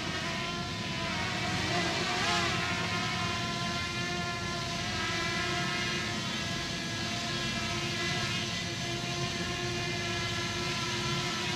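Fimi X8 Mini quadcopter's propellers whining steadily as the drone descends on automatic return-to-home to land.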